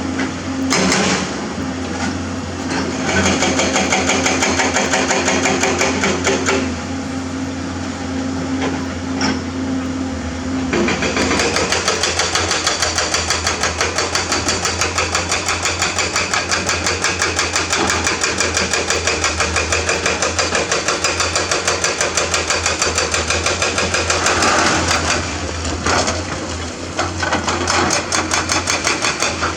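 Excavator working, its diesel engine running with a steady hum. About a third of the way in, a fast, even mechanical clatter of several strikes a second sets in and runs until near the end.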